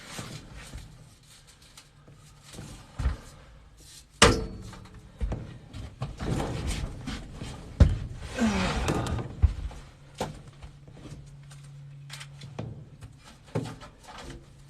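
A sheet-metal furnace panel being worked back into place: a series of scattered knocks and thunks of metal against the cabinet, with a scrape between them, as the panel's inside tab catches and is forced past.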